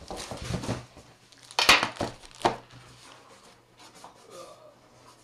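Cardboard box and packaging being handled and moved, rubbing and rustling, with one sharp knock about a second and a half in and two lighter knocks within the next second.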